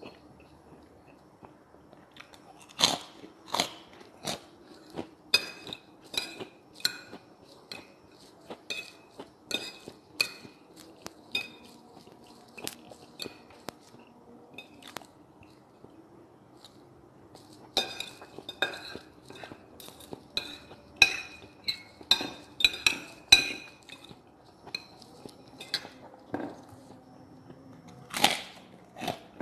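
A metal fork and spoon clink and scrape on a ceramic dinner plate in many sharp, briefly ringing taps, with chewing and crunching of food close to the microphone. The taps come in two busy spells and again near the end.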